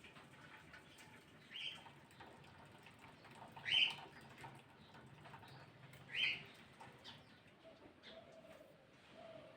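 A bird calling outdoors: a short rising note, repeated three times about two seconds apart, over faint background noise.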